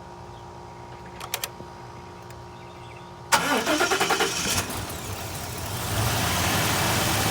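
Ford 6.2-litre gas V8 of a 2018 F250 cranking and starting, after a few light clicks about a second in. It cranks briefly with a slight miss or hesitation as it catches, then settles into a steady idle that grows louder near the end. The hesitation is the truck's hot-soak hard-start symptom, which the owner suspects comes from the purge valve or the fuel pump losing its prime.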